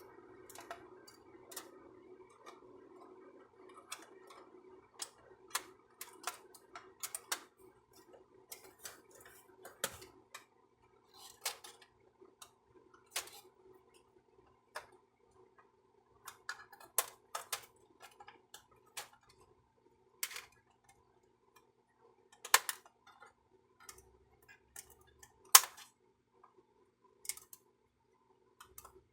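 Irregular sharp clicks and taps of hard plastic parts being handled while a Brother inkjet printer is taken apart, with two louder snaps near the end.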